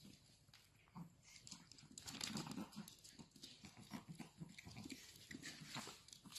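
Two Chihuahuas play-fighting, making quiet dog noises in a string of short, irregular sounds, with rustling of the bedding under them.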